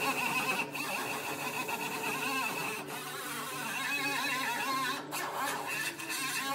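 Handheld pneumatic tool on an air hose running against a car's sheet-metal rocker panel, a steady high whine in two spells, one in roughly the first half and a shorter one near the end.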